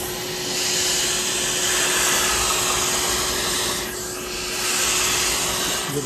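Wet-and-dry upholstery vacuum cleaner running, with a steady motor whine and the hiss of its spray-extraction nozzle working a car's fabric headliner. The suction hiss swells about half a second in, dips briefly around four seconds, then rises again as the nozzle moves over the cloth.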